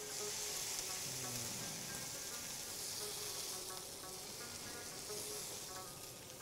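Trout fillets sizzling in hot olive oil in a frying pan as they are laid skin-side down to sear. The sizzle is loudest in the first few seconds and eases a little after.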